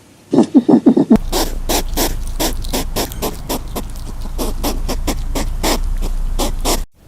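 A short burst of quick, squeaky animal calls, then a long run of sharp clicks, about four a second, over a low hum.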